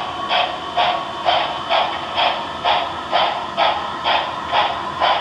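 Paragon 4 sound decoder in an HO-scale I-5 Hudson steam locomotive model playing steady steam exhaust chuffs, about two a second, as the model runs slowly along the track.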